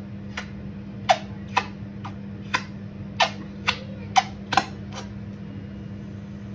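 Squeeze bottle of Heinz mayonnaise being squeezed, the nozzle letting out about ten short, sharp spurts in uneven succession over the first five seconds. A steady low hum runs underneath.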